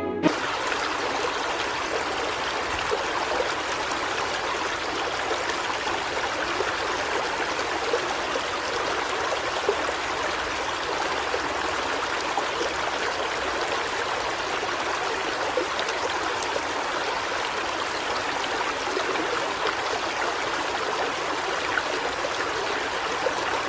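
Running water: a stream flowing steadily, an even rushing sound without pauses.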